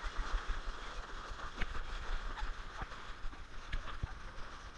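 Shallow sea water splashing and sloshing around a surfboard as it is towed through the water, with wind rumbling on the camera's microphone. A few short, sharp taps stand out from the splashing.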